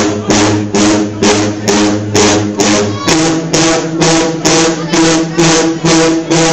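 Marching band sousaphone section playing low, held notes over a steady drum beat of a little more than two beats a second; the brass pitch shifts down about three seconds in.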